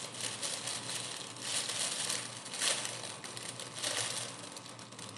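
Iridescent cellophane wrap crinkling and rustling in the hands as it is gathered and tied shut around the egg, with several louder rustles.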